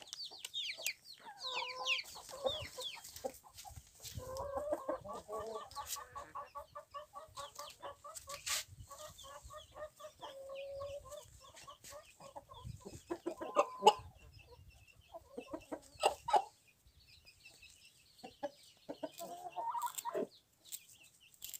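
Chickens clucking: a long run of rapid, evenly paced clucks through the middle, a few sharp louder squawks after it, and a rising call near the end. Thin high falling chirps sound in the first few seconds.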